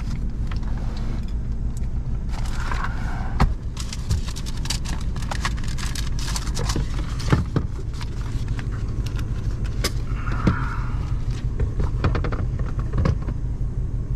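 Nissan pickup's engine idling steadily, heard from inside the cab, with scattered sharp clicks and rattles of small items being handled, the loudest about three and a half seconds and seven seconds in.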